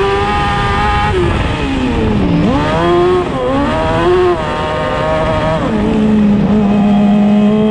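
Dwarf race car's motorcycle engine under race load, heard onboard. The revs fall away about a second in, dip and pick up twice as the throttle is lifted and reapplied, then settle and slowly climb.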